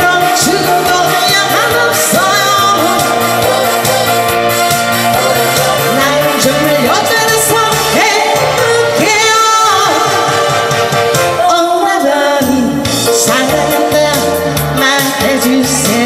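A woman singing a Korean trot song into a handheld microphone over a loud instrumental backing track with a steady beat.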